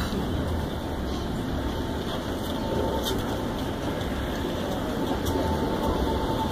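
Cars driving past across a railroad crossing, a steady traffic noise. A faint high steady tone comes in about five seconds in.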